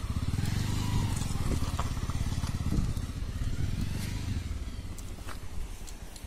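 A 150 cc motorcycle engine running at low revs as the bike is ridden slowly through slippery mud, growing fainter as it pulls away.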